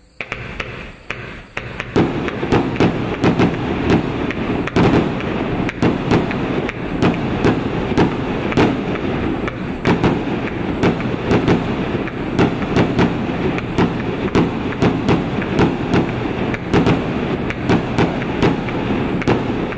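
A Guandu GDC30I0904072 90-shot display firework cake firing shot after shot: sharp reports at about two to three a second with continuous crackling between them, getting going in earnest about two seconds in.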